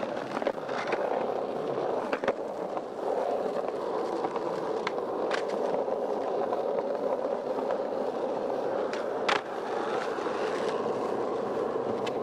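Skateboard wheels rolling steadily over street pavement, broken several times by sharp clacks of the board.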